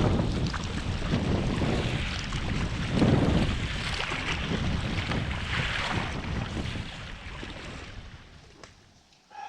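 Strong wind buffeting the microphone in uneven gusts, dying away over the last couple of seconds.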